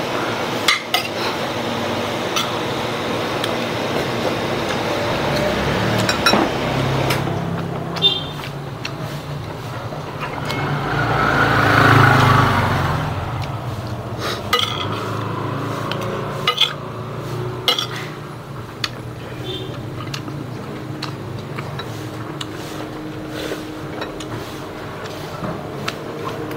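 A metal spoon clinking and scraping against plates and a glass bowl during a meal, in scattered sharp clinks over a steady background noise. About midway a broader rushing sound swells up and fades over a few seconds.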